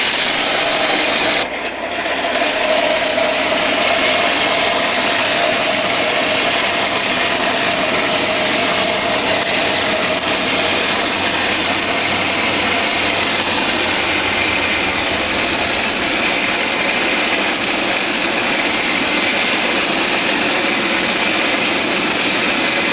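Hand-cranked forge blower running steadily, a whirring rush of air forced up through the burning coal, with a whine from the blower that changes pitch partway through.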